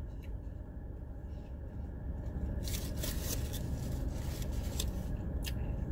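Steady low hum of a car idling with its air conditioning running, with a few brief rustles and clicks of handling over it about halfway through and near the end.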